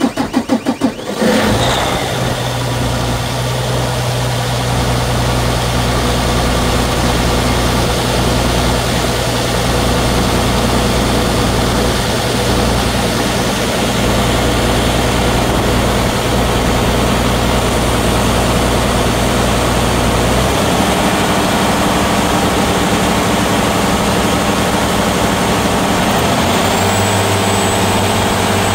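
Claas Lexion 770's Mercedes-Benz OM 473 LA six-cylinder turbo-diesel catching from a start with a few uneven pulses, then settling into a loud, steady idle. Its note changes about 20 seconds in and again near the end, when a faint high whine joins it.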